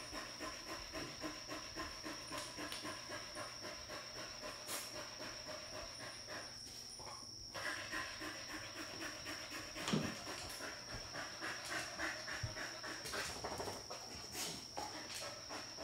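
Dog panting quickly in a steady rhythm, with a short break about seven seconds in and a soft thump about ten seconds in.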